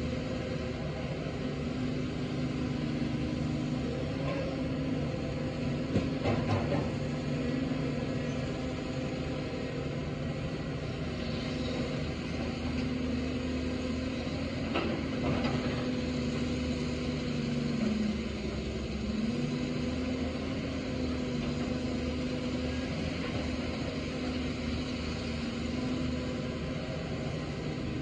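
Caterpillar 320D hydraulic excavator's diesel engine running steadily as it digs, its note dipping briefly under load about eighteen seconds in. A few knocks from the bucket striking soil and rock come about six and fifteen seconds in.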